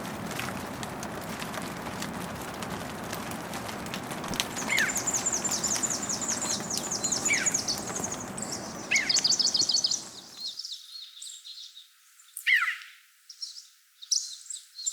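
Small birds singing: rapid trills of high, falling chirps and single falling whistles, over a steady rushing background that cuts out abruptly about two-thirds of the way through, leaving the birdsong on its own.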